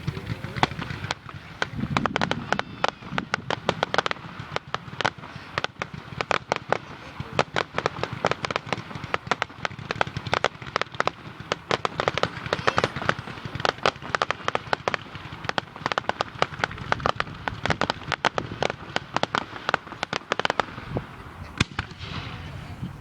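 Fireworks popping and crackling in a dense, rapid barrage of sharp cracks, which thins out near the end.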